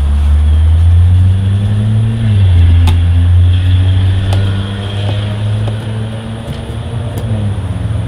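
A motor vehicle engine running with a loud, low drone. Its pitch rises slightly and then drops about two seconds in. A few faint clicks are heard over it.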